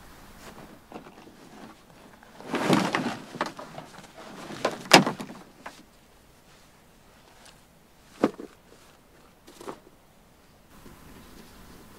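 Camping gear being handled: two spells of rustling and knocking, the second ending in a sharp knock about five seconds in, then a couple of fainter single clicks.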